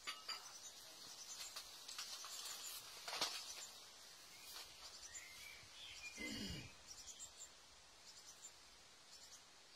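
Faint outdoor background with small birds chirping off and on. There is a sharp click a little over three seconds in, and a short low sound that falls in pitch at about six seconds.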